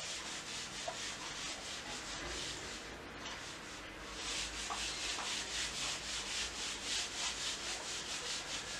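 Felt whiteboard duster wiping marker off a whiteboard in rapid back-and-forth strokes, several a second, easing off briefly about three seconds in.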